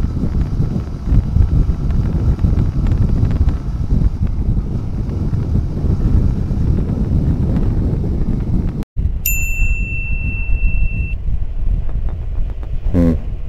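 Wind buffeting the microphone over the rumble of a motorcycle riding along the road. About nine seconds in the sound drops out for an instant, then a steady high-pitched ding holds for about two seconds.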